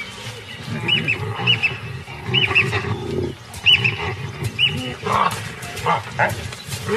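Male baboons fighting over a kill: deep grunts and growls throughout, with sharper, higher calls from about five seconds in. High paired chirps repeat through the first five seconds, and a music bed plays under it all.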